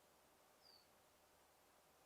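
Very quiet forest ambience: a faint steady hiss, with one short, high bird chirp a little over half a second in.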